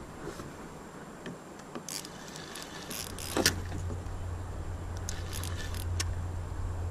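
Spinning reel being cranked to bring in a hooked fish: scattered light metallic clicks, then from about three seconds in a steady low whir as the reeling goes on.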